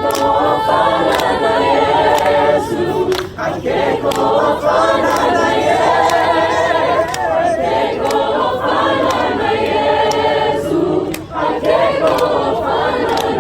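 A choir singing in harmony, many voices together, with two short breaks about three and eleven seconds in.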